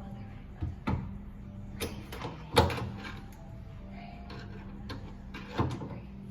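Irregular sharp metal clicks and knocks, about four in all, the loudest about two and a half seconds in, from an Allen wrench being worked in the hex socket under a jammed garbage disposal to free its stuck grinding plate.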